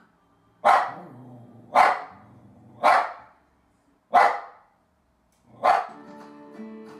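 A dog barking at the television: five loud, sharp single barks about a second apart. Guitar music comes in near the end.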